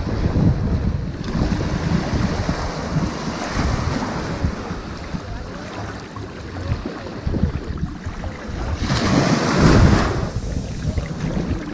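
Ocean waves washing onto a sandy beach, with a steady low rumble of surf and one louder wave breaking and hissing up the sand about nine seconds in, over some wind on the microphone.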